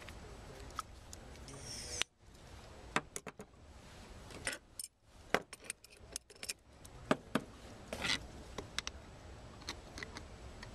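Scattered metallic clicks and clinks of hand tools and steel sampler parts being handled and tightened on a bench, including a ratchet wrench turning the spindle. The clicks come irregularly, with a few short rattling runs.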